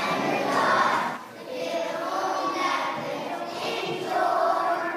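A choir of young children singing together in unison, with a short break between phrases about a second in.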